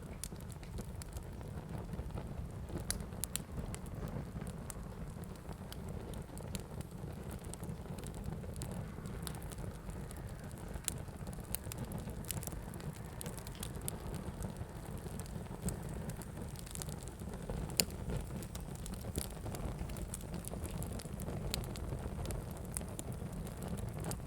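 Fire burning with a steady low rumble and irregular sharp crackles and pops, one louder pop about two-thirds of the way through.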